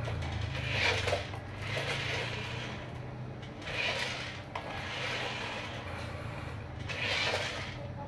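Toy RC dump truck's electric drive motor and gearbox whirring in several short bursts as it drives down off a plastic ramp onto a concrete floor, over a steady low hum.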